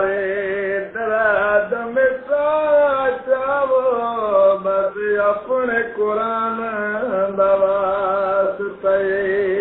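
A man singing solo, drawing out long wavering notes with vibrato in a slow, chant-like melody, breaking briefly for breath a few times. A steady low hum runs underneath.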